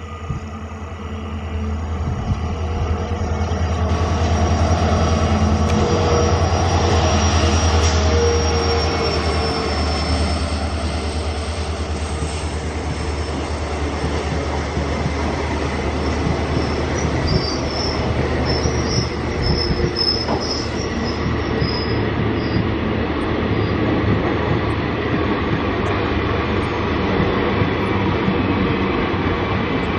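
WDP-4D diesel locomotive's EMD 16-cylinder two-stroke engine running, a low drone that grows and is loudest a few seconds in as the locomotive passes close. Then the passenger coaches roll past with steady wheel and rail noise, and brief high wheel squeals around the middle.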